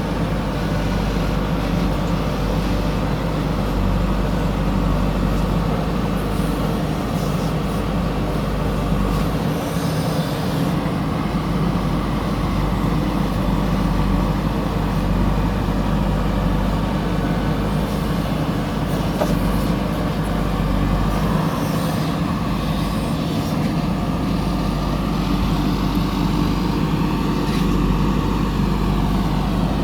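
Backhoe loader's diesel engine running steadily while working, with a few brief clatters over it.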